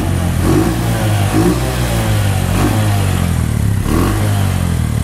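A Bajaj CT 100's single-cylinder four-stroke engine idling steadily, heard close to the exhaust silencer. The owner says the engine has lost its pulling power, though it sounds good, and it is due for a full engine rebuild.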